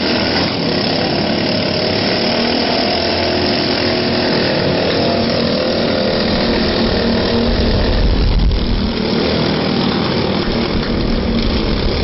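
Small engines of several riding lawnmowers running together, a steady buzzing drone. A deeper rumble swells for a second or so about eight seconds in.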